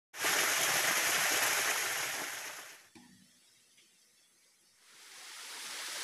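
Small waterfall splashing into a rocky pool: a steady rush of falling water that fades out about three seconds in. A steady hiss swells back in near the end.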